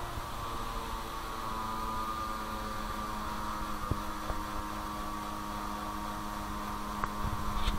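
Steady hum of an automatic transmission fluid exchange machine running, with the Toyota Yaris's engine idling, while dark used fluid is drawn out of the gearbox. A click about four seconds in.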